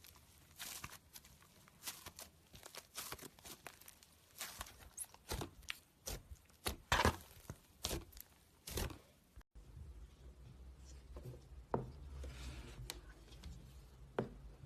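Slime being squeezed and worked by hand, making a quick run of crackling clicks and pops. About nine and a half seconds in the sound cuts out briefly, then a low hum with a few scattered clicks follows.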